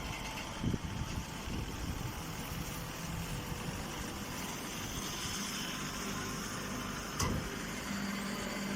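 Chopped straw baling machine running steadily, with two short knocks and a steady hum that comes in about halfway through and grows stronger near the end.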